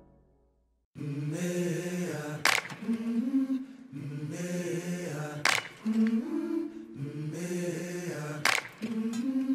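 After about a second of near silence, a wordless a cappella chant starts: low voices holding and shifting notes together, with a sharp percussive hit about every three seconds.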